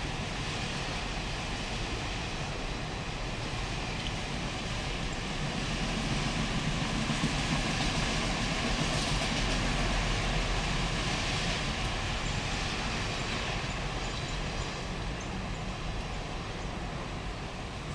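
Empty autorack freight cars of a passing train rolling by: a steady noise of steel wheels on the rails, growing a little louder about six seconds in and easing off again toward the end.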